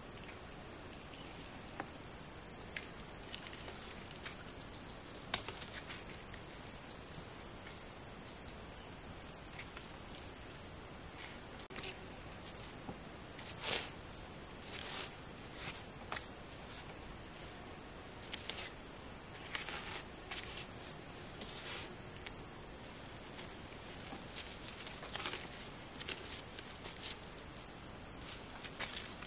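Insects chirring in a steady high-pitched drone, with scattered light taps and clicks and one sharper knock near the middle.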